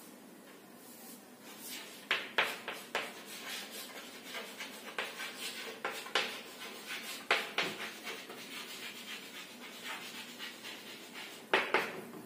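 Chalk writing on a chalkboard: a run of irregular short scratches and taps as letters are written, with a couple of louder strokes near the end.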